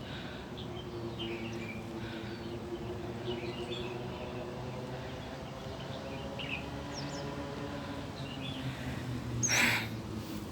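Small birds chirping now and then in short, scattered calls over a steady low hum. A brief, louder rustling burst comes near the end.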